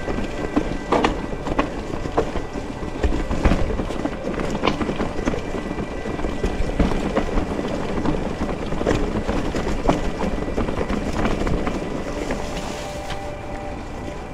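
Mountain bike rolling over a rough, rocky trail: a continuous rumble of tyres on stones and gravel, with frequent sharp knocks and rattles from the bike.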